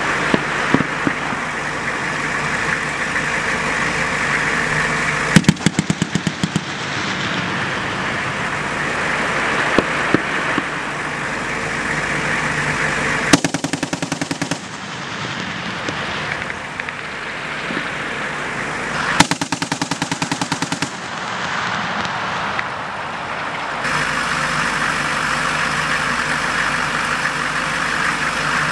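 Machine guns firing several short bursts of rapid automatic fire, over the steady running of military vehicle engines.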